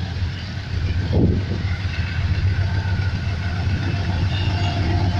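AGE-30 diesel-electric locomotive approaching at the head of a passenger train: a steady low engine rumble that grows louder about a second in.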